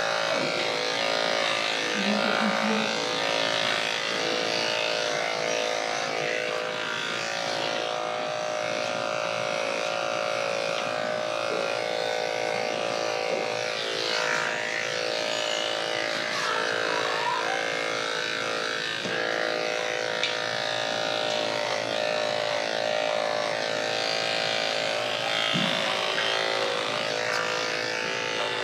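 Electric dog-grooming clippers running with a steady hum as they shave through a dog's coat.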